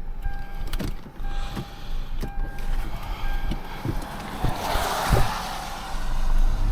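A vehicle's electronic warning beep sounding about once a second over the low rumble of a running engine, with a short burst of hiss about five seconds in.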